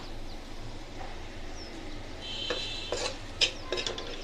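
Steel spoon stirring and scraping cooked sweet potato greens in a black metal karai, with several sharp clinks of the spoon against the pan in the second half, over a steady low hum.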